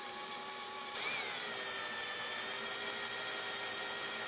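Cordless drill with a small bit running steadily, drilling a pilot hole through a boat hull's fibreglass gel coat. The motor whine surges and drops slightly in pitch about a second in, as the bit bites, then holds steady.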